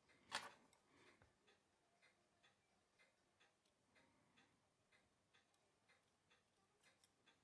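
Nomos Glashütte watch's ETA 7001 hand-wound movement ticking faintly, a rapid, even tick of several beats a second. A louder single click sounds about half a second in.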